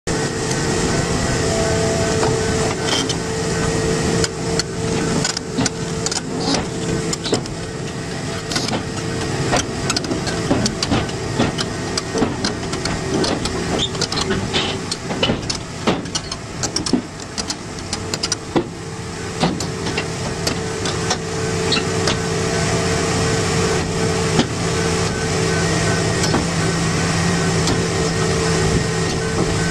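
Caterpillar 330 hydraulic excavator's diesel engine running under load with a steady hydraulic whine, while its steel tracks clank and knock over the steel ramps of a lowboy trailer as it climbs aboard. The clanks come thickest in the middle stretch.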